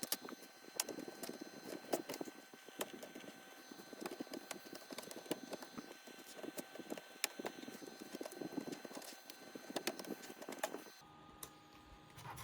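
Irregular small clicks, taps and scraping of tools and fingers working the plastic back panel off a gaming laptop, such as undoing screws and prying the panel's clips. Near the end the sound cuts to a quieter, steady background hum.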